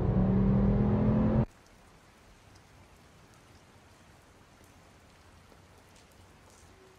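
Steady drone of a moving car's engine and road noise heard inside the cabin, cut off suddenly about a second and a half in. After it comes faint, steady rain patter on wet paving, with a few light drips.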